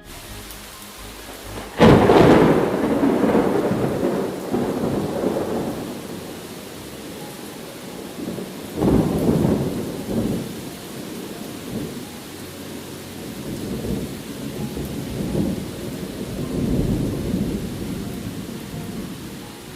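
Thunder over steady rain: a sudden clap about two seconds in that rolls off into a long rumble, a second clap near the middle, then softer rolling rumbles toward the end.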